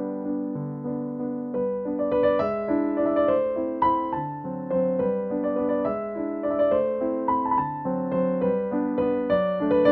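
Background piano music: a gentle tune of held notes changing about twice a second.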